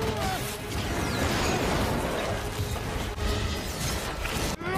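Fight-scene soundtrack: music score under a dense mix of impact, crash and whoosh sound effects, with a brief drop-out near the end.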